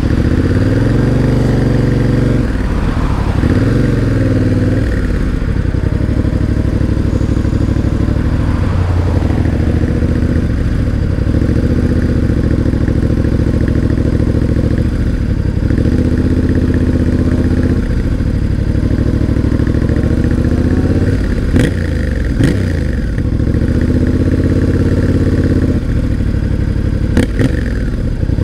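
Yamaha Ténéré 700's parallel-twin engine running on the move, its pitch climbing under throttle and dropping off again and again as the bike accelerates, shifts and slows. A few sharp pops come in the second half as it slows.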